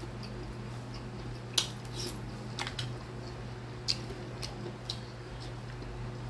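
Spoon and fork clinking and scraping against a plate during a meal: several sharp clinks, the loudest about one and a half seconds in, over a steady low hum.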